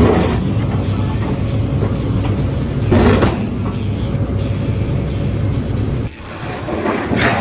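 A steady low mechanical rumble with a few knocks in it, falling away suddenly about six seconds in and then building again.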